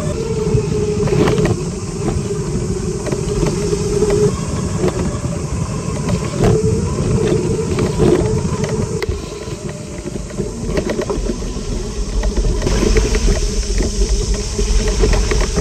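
Electric motorbike, a UBCO 2X2, ridden over a rough bush track: a steady motor whine over rumble, with irregular knocks and rattles. About thirteen seconds in, a heavier low rumble and more hiss set in.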